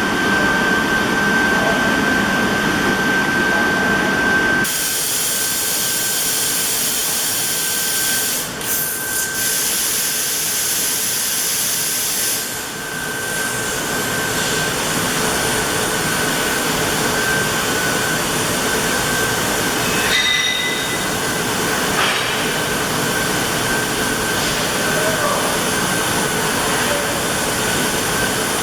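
Trumpf TCL 4050 CNC laser cutting machine running: a steady hiss with a constant high whine. About five seconds in, the hiss turns higher and brighter, with a few brief dips and clicks later on.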